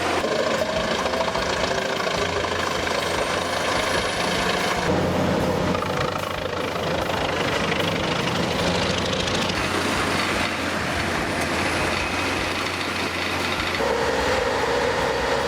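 Heavy machinery running: a steady mechanical din with a low engine hum. It changes abruptly about five seconds in and again near the end.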